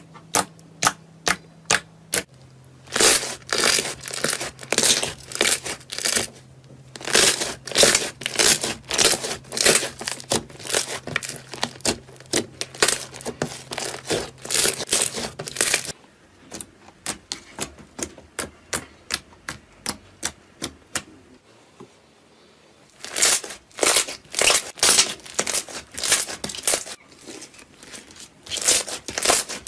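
Slime being squished and kneaded by hand: a fast, uneven run of wet clicks, pops and crackles, stopping for a moment about three quarters of the way through.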